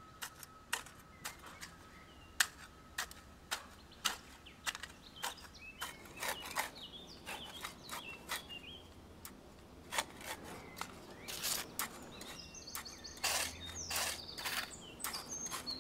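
A machete chopping into grass and soil in repeated short strokes, each a sharp click, about one every half second to second and more frequent in the second half. Birds chirp throughout, busiest near the end.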